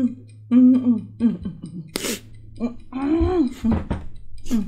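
Short, pitched hums and moans made through closed lips around lollipops, with a sharp hissing breath about two seconds in and a longer moan about three seconds in: pained reactions to the burning heat of extremely spicy lollipops.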